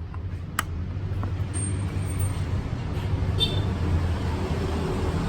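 A motor vehicle engine running with a low, steady hum that grows louder over the first few seconds. There are a couple of sharp clicks near the start.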